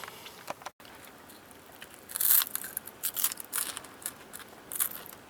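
A person chewing crackers with corned beef close to the microphone, with a few short crunching bursts in the second half.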